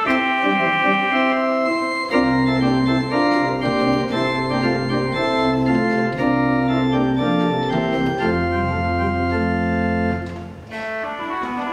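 Martin Ott mechanical-action (tracker) pipe organ playing sustained full chords, with long low pedal bass notes coming in about two seconds in. The sound dips briefly near the end, at the break between phrases, then the chords resume.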